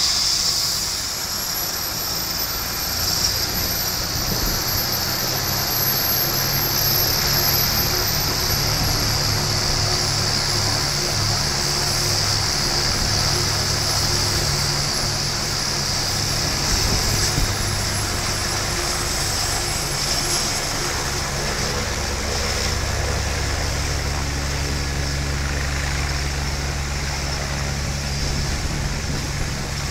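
Helicopter running on the ground with its turbine whining and its main rotor turning. A deeper low rumble from the rotor builds about two-thirds of the way through as the helicopter swings round on the pad to take off.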